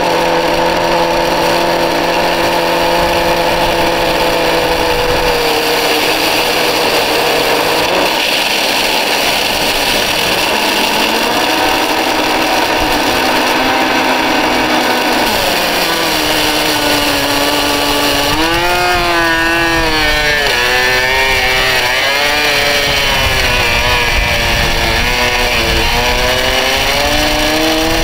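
Dirt Devil Ultra MVP vacuum cleaner's motor running with a loud whine. Its pitch drops partway through and then wavers up and down repeatedly as the load on the motor changes.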